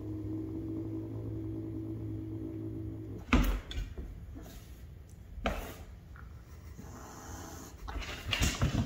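Maine Coon cats play-fighting on a wooden floor: sudden scuffling thumps and swipes about three seconds in and again a couple of seconds later, then a busier flurry near the end. A low steady hum comes before the first thump.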